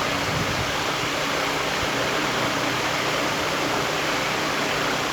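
Steady rushing background noise with a faint low hum underneath, unchanging throughout.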